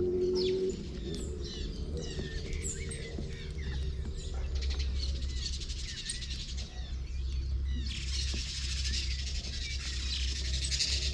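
A flock of small birds chirping and twittering, the chatter growing denser from about eight seconds in, over a steady low hum. A held low tone stops just under a second in.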